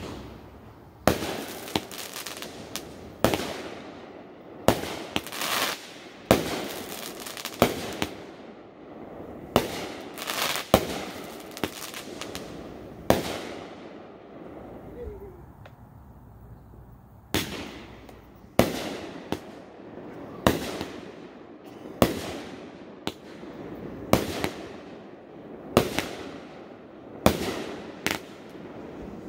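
Aerial fireworks bursting overhead: a string of about twenty sharp bangs, roughly one a second, each trailing off in an echoing rumble, with a pause of a few seconds midway.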